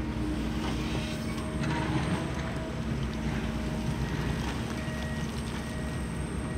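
Kobelco SK 260-10 crawler excavator's diesel engine running steadily, with a brief clatter about two seconds in.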